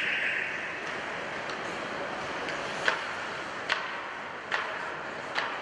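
Short referee's whistle blast at the very start over the steady background of an ice arena, then four sharp knocks a little under a second apart.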